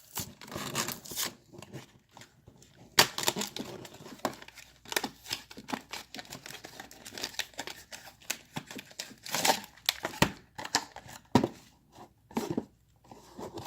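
Plastic packaging of a slime toy being torn and peeled open, with irregular crinkling and tearing and a sharp click about three seconds in.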